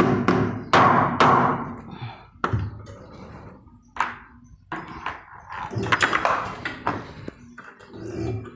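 Pliers and a screwdriver knocking, clicking and rattling against a steel wire-and-tube condenser coil as it is being fastened in place: an irregular string of sharp knocks, busiest about a second in and again around six seconds.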